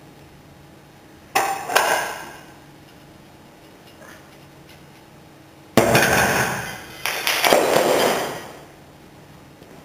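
Metal clanking of weight plates hung on a Rolling Thunder grip handle's chain and loading pin: a sharp clank about a second and a half in as the load comes off the floor, then two longer clatters about six and seven seconds in as the plates are set down and the handle drops to the floor.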